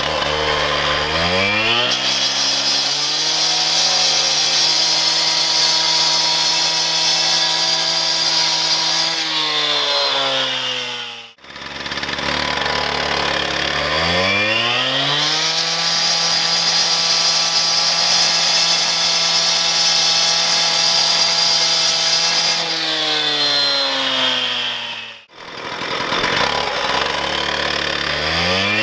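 STIHL TS420 two-stroke cut-off saw with a diamond blade revving up and cutting concrete paver blocks at full throttle, then winding back down; this happens three times, each run cut off abruptly about 11 and 25 seconds in.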